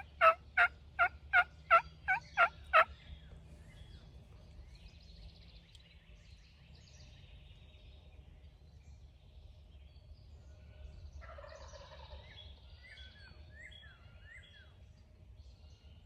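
Wild turkey yelping: a loud run of evenly spaced calls, about three a second, that stops about three seconds in. Faint songbird chirps follow.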